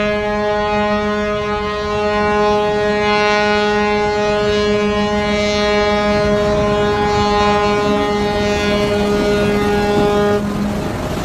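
Ship's horn sounding one long, steady blast on a single deep pitch over a low background rumble, cutting off near the end. It is sounded by a ship being beached for scrapping.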